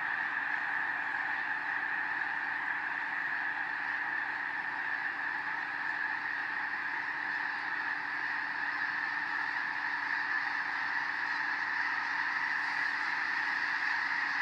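A huge flock of snow geese calling in flight, thousands of overlapping honks merging into one steady, unbroken chorus; the flock has been flushed into the air by a passing bald eagle.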